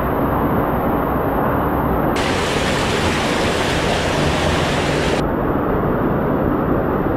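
Waterfall and whitewater rushing through a narrow rock gorge: a steady, loud rush. It turns brighter and hissier for about three seconds in the middle.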